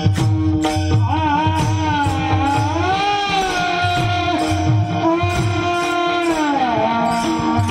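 Devotional kirtan singing: a solo voice enters about a second in and holds long, wavering melodic notes over a steady drone, with a regular hand-drum beat and small cymbals keeping time.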